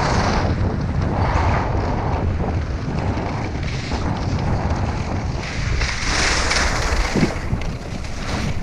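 Wind buffeting the microphone at speed, a steady low rumble, with the hiss of skis scraping over hard, icy snow swelling and fading as the skier is pulled along by a kite.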